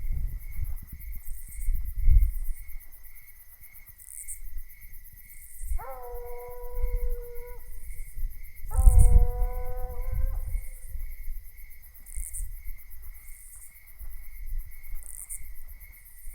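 Coonhound baying on a track: two long drawn-out howls, the second starting about a second after the first ends. Crickets or katydids chirp steadily and evenly underneath.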